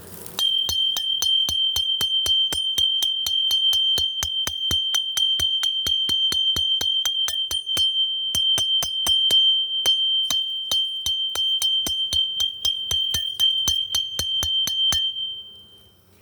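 Tanging: a ringing metal object beaten rapidly and steadily, about five strikes a second, with a clear ringing tone, done to try to drive a honey bee swarm into a hive box. The beating pauses briefly twice around the middle and stops about a second before the end.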